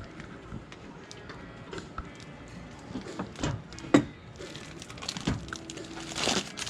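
Scattered clicks and knocks of hard plastic headlight parts being handled, with one sharp click about four seconds in.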